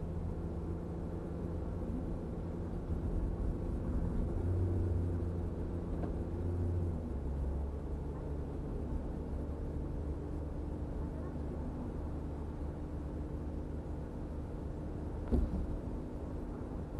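Car engine and road noise inside the cabin while driving; the engine note drops about seven seconds in. A short thump comes near the end.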